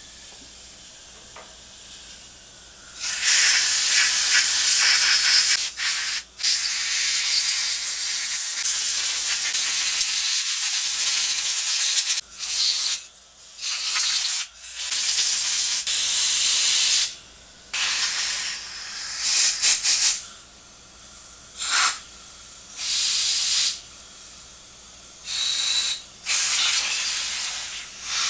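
Compressed-air blow gun blasting air through the ports of a freshly ultrasonic-cleaned Keihin CVK carburetor body. A loud hiss starts about three seconds in and holds for several seconds, then comes as a string of shorter blasts, clearing the passages and checking that air comes out the other side.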